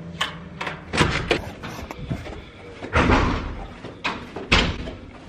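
A few sharp knocks and thumps: two about a second in, a louder one with a short scrape around three seconds, and another near four and a half seconds.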